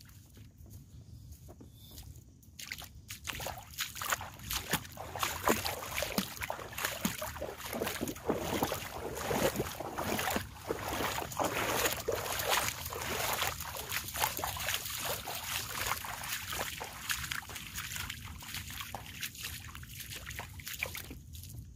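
Footsteps splashing and squelching through shallow water and mud on a waterlogged path, with the water sloshing at each step. They begin a few seconds in and go on irregularly, fading somewhat near the end.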